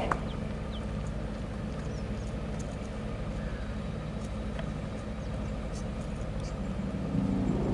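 Steady low engine hum, like a vehicle idling, with a few faint high ticks over it.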